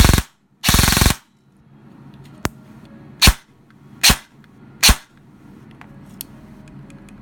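G&G airsoft electric gun firing: two short rapid bursts at the start, the gearbox cycling several times in each, then three single shots about 0.8 s apart, showing the burst and semi-automatic modes set through the electronic micro-switch trigger.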